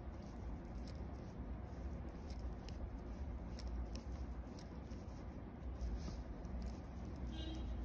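Knitting needles clicking lightly and irregularly, with soft yarn rustle, as plain (knit) stitches are worked, over a low steady hum.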